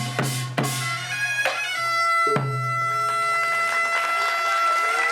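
Korean pungmul folk band playing: a few drum strikes in the first half, then a long held note on a taepyeongso (Korean shawm) from a little past two seconds in.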